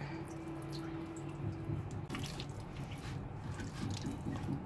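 Wet squelching and small clicks of a knife and hands working spice-marinated chicken pieces in a plastic bowl, as the pieces are scored and rubbed with masala. A faint steady tone sounds for about the first second and a half.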